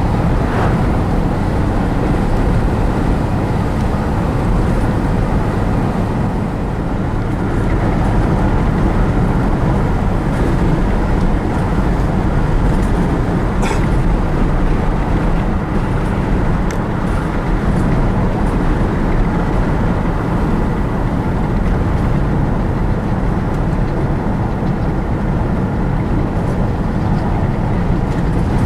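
Steady road and engine noise heard inside a moving truck's cab, a constant low rumble, with a single brief click about halfway through.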